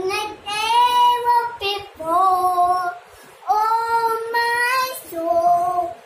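A young girl singing solo in four phrases of long, held notes, with short breaths between them.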